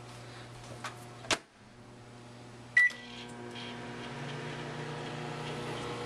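Microwave oven being shut and started: a clunk of the door about a second in, a short keypad beep just before the halfway point, then the oven running with a steady low hum.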